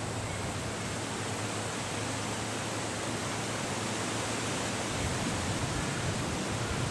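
Steady rushing noise, even throughout, with no distinct calls or knocks standing out.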